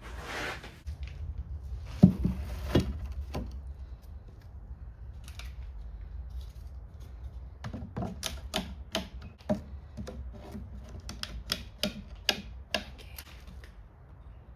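Heavy timber being handled: a few loud knocks about two seconds in, then an irregular run of sharp clicks and taps near the end.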